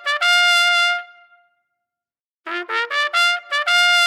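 Trumpet fanfare: a held note that fades out, about a second of silence, then a quick run of short notes climbing in pitch that ends on another held note.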